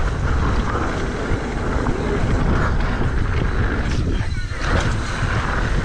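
Wind rushing over the microphone and knobby tyres rolling on packed dirt as a mountain bike descends a jump line at speed: a steady rushing noise, heaviest in the low end.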